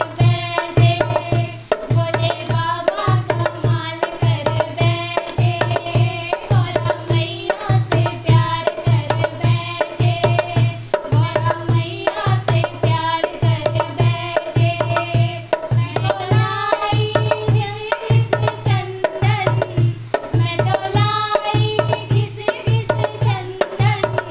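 Two women singing a Hindi Shiv bhajan, a devotional song to Shiva, over a steady hand-drum beat.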